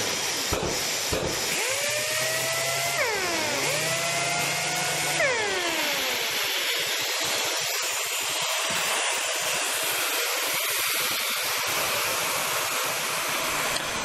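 Mirka dust extractor running with sanders hosed to it. The sanders spin up and wind down twice in the first few seconds, as rising and then falling whines. After that the extractor runs on alone with a steady rush.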